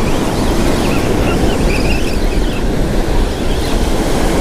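Ocean surf breaking and washing up a sandy beach, a steady loud rush, with wind buffeting the microphone.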